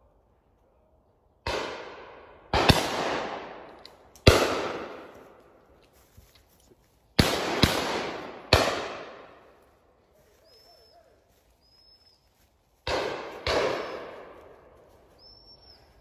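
Shotgun shots, about eight in all and mostly in quick pairs, each sharp crack dying away over a second or more.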